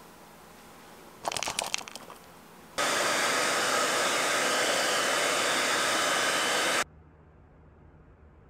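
A short clatter, then a handheld hair dryer blowing steadily for about four seconds and cutting off abruptly.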